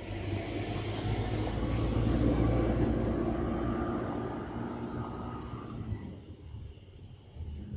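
Aircraft passing overhead: a low rumble with a droning hum that swells to its loudest about two seconds in and fades away by about six seconds.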